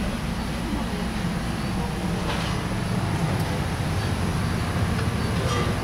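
Steady low mechanical rumble with a faint, constant high-pitched whine and a few soft clicks.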